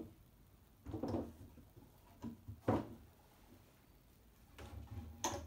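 Heavy Douglas fir boards being lifted and set down on bar clamps: a handful of dull wooden knocks and thuds, the sharpest just under three seconds in and another near the end.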